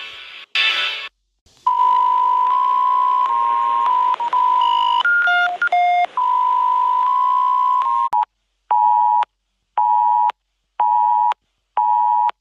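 Electronic emergency alert tones. A brief burst of static-like noise comes first, then a steady attention tone sounds for about six seconds with a short stretch of alternating high and low tones in the middle. From about eight seconds in it turns to evenly spaced beeps, about one a second.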